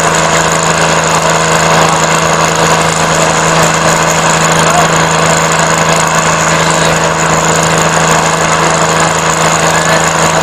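Swaraj 855 tractor's diesel engine running flat out under heavy pulling load, a loud, unbroken drone, with its rear tyres spinning in the dirt.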